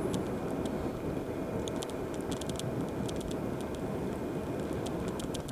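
Motorcycle riding at low speed: steady engine and road noise, with scattered light ticks and rattles.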